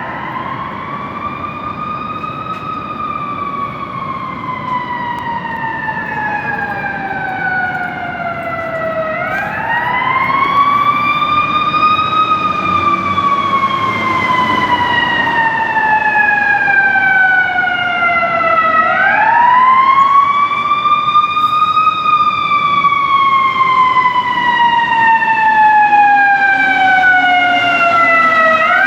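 Fire engine siren on a slow wail: each cycle climbs for a couple of seconds, then falls slowly, repeating about every nine to ten seconds. It grows steadily louder as the engine approaches, with a low rumble under it.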